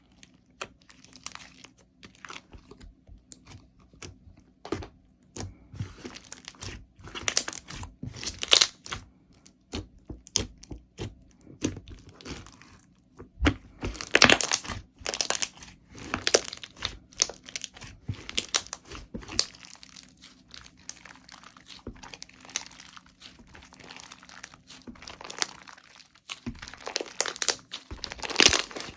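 Slime being worked by hand, giving irregular crinkly crackles and pops, with denser, louder clusters about halfway through and near the end.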